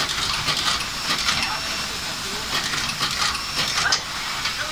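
Radial-lead auto insertion machine running: an irregular, rapid run of sharp clicks and clacks from the insertion head placing components into a circuit board, over a steady pneumatic hiss.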